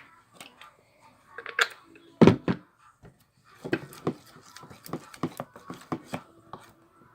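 Slime being mixed in a bowl as activator is worked in: irregular clicks and knocks of the mixing, with one louder thump a little over two seconds in and a quicker run of them in the second half.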